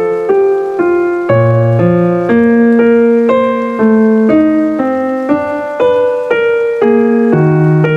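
Keyboard music: chords and a bass line stepping to a new note about every half second in a steady rhythm.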